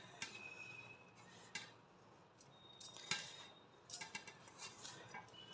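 Fingers mixing finger millet flour and hot water in a stainless steel bowl: faint, scattered scrapes and light clicks against the metal.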